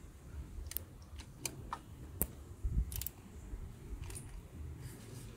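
Scattered light metallic clicks and taps of a socket wrench on a long extension being worked on top of an engine, irregularly spaced, with a few quick clicks together about three seconds in.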